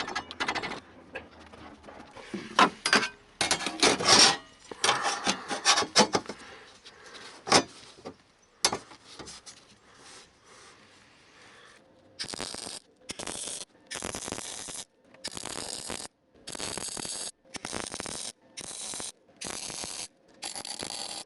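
Irregular metallic scraping and clattering, then, from about halfway through, a steady run of short crackling bursts about one a second, each cut off sharply: a MIG welder laying tack welds on a steel floor and sill repair patch.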